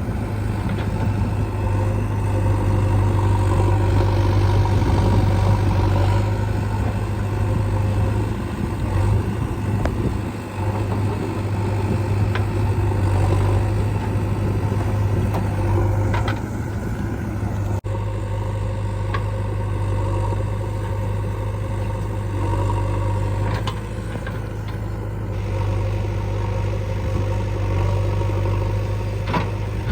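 Heavy diesel machinery engines running steadily at working revs, a deep even drone with a few faint knocks and a momentary dropout about 18 seconds in.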